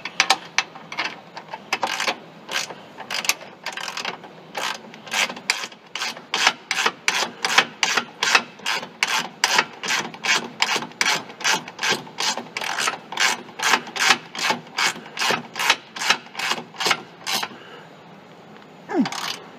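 A ratchet wrench clicks steadily, a little over two clicks a second, as an A-arm pivot bolt is run in and tightened through its new bushings. The clicking stops about two seconds before the end, and a short scrape follows.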